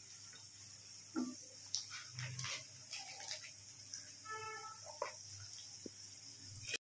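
Peas and butter frying gently in an iron kadhai with a soft steady sizzle, a steel spatula scraping and tapping against the pan as they are stirred. A short pitched call sounds faintly about four seconds in.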